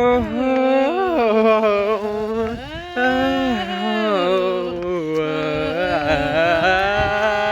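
A person singing loudly without accompaniment, drawing out long held notes that slide up and down in pitch.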